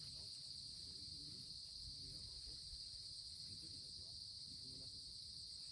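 Steady, high-pitched chorus of crickets chirring without a break, with faint distant voices underneath.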